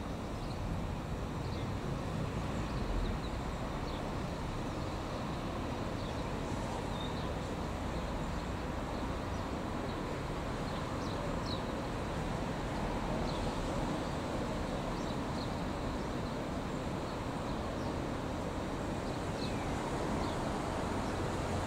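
Steady low rumble of an Irish Rail 8520 Class DART electric train approaching through a tunnel, growing slightly louder near the end, over outdoor station ambience. Short, high bird chirps come now and then throughout.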